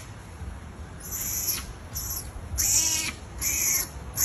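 Baby macaque crying loudly: three high, wavering cries, the first fainter about a second in, then two louder ones close together near the end.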